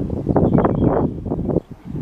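Wind buffeting the microphone in uneven gusts, a loud low rumble that drops away briefly near the end.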